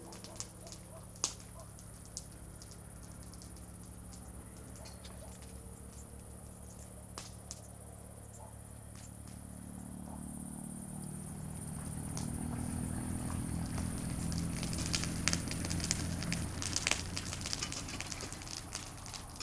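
Fire crackling and popping, with the pops coming thicker and louder in the second half, over a low steady hum.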